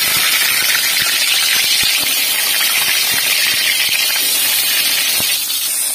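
Hot oil sizzling steadily in a wok as a slice of tempeh deep-fries, with an occasional faint pop.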